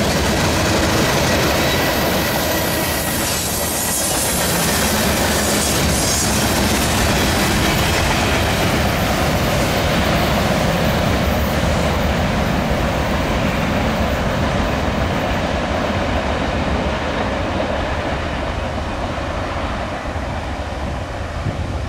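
Freight cars rolling past on the rails in a steady rumble and clatter of wheels. The sound thins and fades as the end of the train pulls away.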